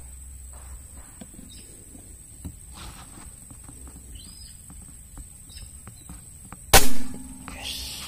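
A single sharp shot from a PCP air rifle about seven seconds in, much louder than anything else, followed by a short rustle. Under it runs a steady high-pitched whine with faint chirps and small clicks.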